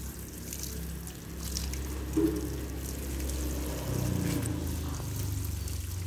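Water showering from the rose of a metal watering can onto the potting soil and leaves of potted anthuriums, a steady splashing pour. There is one short thump about two seconds in.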